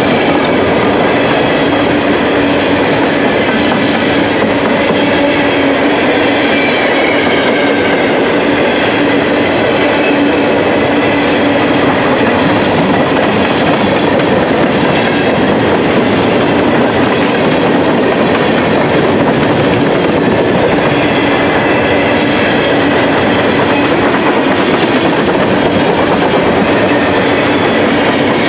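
Empty open-top coal hopper cars rolling past close by: the steel wheels running over the rails make a loud, steady rolling noise, with faint high tones held over it.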